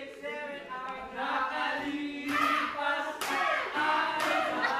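Several voices singing together in a casual group sing-along, with a couple of sharp claps or knocks partway through.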